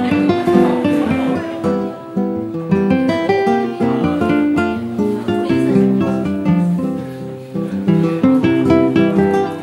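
Background music: acoustic guitar playing a brisk run of plucked and strummed notes.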